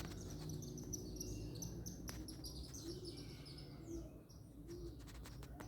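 Several small birds chirping, with quick high chirps thickest in the first three seconds, over a steady low rumble.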